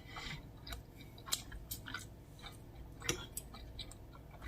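A person chewing a mouthful of food, with soft wet mouth noises and scattered small clicks.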